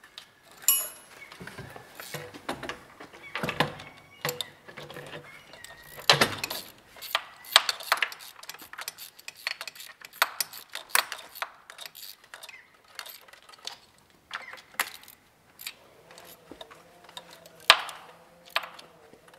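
Hand tools clicking and clinking against metal engine parts, in irregular sharp knocks and taps, as parts are fitted and bolted onto the top of the engine.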